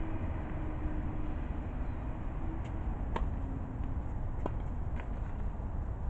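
Tennis ball struck by racquets and bouncing on a hard court during a rally: a few sharp pocks, the clearest about three seconds in, over a steady low rumble.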